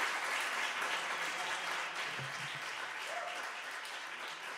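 Audience applauding, the clapping slowly dying away, with a voice or two briefly heard from the crowd.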